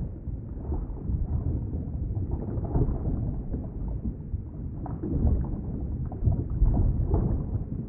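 Underwater ambience: a low, muffled rumble and wash of moving water, swelling and ebbing, with nothing in the higher pitches.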